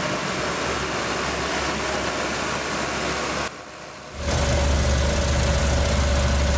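Heavy machinery engines running steadily. After a short dip about three and a half seconds in, the diesel engines of a demolition crawler crane and excavator come in louder, with a low, even hum and no impacts.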